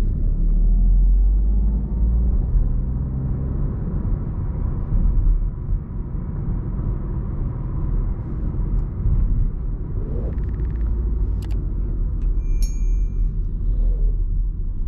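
2020 Opel Astra with its 1.2-litre petrol engine driving: a steady low engine and road rumble. A faint rising tone comes in over the first couple of seconds, and a few sharp clicks with a short high tone come near the end.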